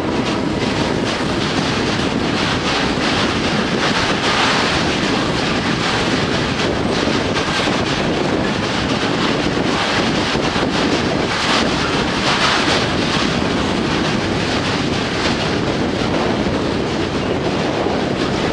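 Freight train of Falns bulk hopper wagons, headed by an electric locomotive, rolling past close by: a loud, steady rumble and rattle of steel wheels on the rails, with repeated clatter of wheels over the rail joints.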